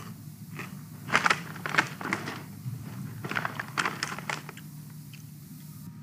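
Figure skate blades scraping across the ice in a series of short scrapes, in two clusters about a second in and again around three to four seconds in, over a steady low hum.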